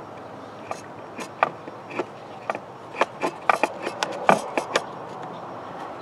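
Irregular sharp clicks and taps, a dozen or so and busiest in the middle, as a power probe tip is worked down against plastic and metal parts in the engine bay toward the starter cable.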